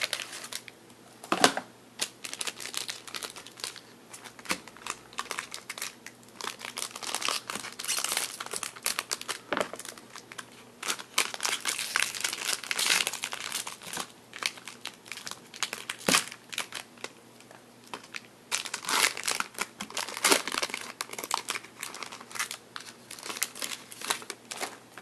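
Foil trading-card pack wrapper crinkling and tearing as it is worked open by hand, in irregular crackling runs with a quieter lull of a couple of seconds past the middle.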